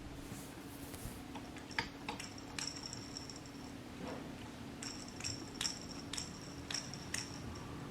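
Small hard parts being handled, giving faint, irregular clicks and light taps over a steady low hum.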